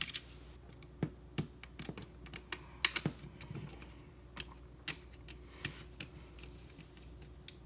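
Irregular small clicks and taps of a screwdriver and wire against a GFCI outlet's terminal screws, as a loose wire is fitted and its terminal screw tightened. The sharpest click comes about three seconds in.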